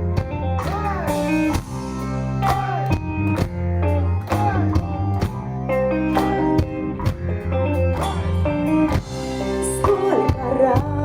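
Live rock band playing an instrumental passage between verses: guitars, bass and drum kit under a lead melody of short sliding phrases, repeated about every two seconds.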